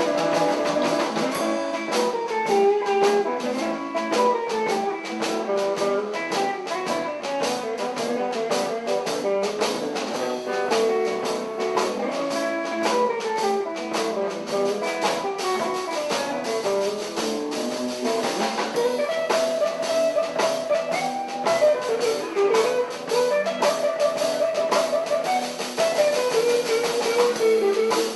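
Live blues band playing an instrumental passage: an electric guitar plays a single-note lead line with string bends over a steady drum kit beat.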